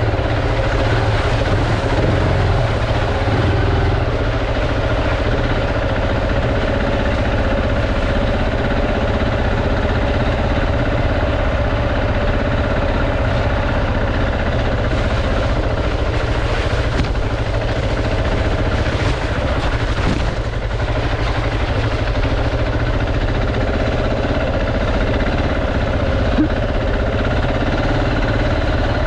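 Enduro motorcycle engine running at a steady, even speed while being ridden, with a few brief knocks around the middle.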